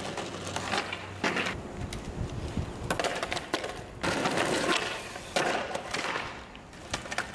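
Skateboard wheels rolling on asphalt, broken by several sharp clacks of the board hitting the ground as flat-ground tricks are tried.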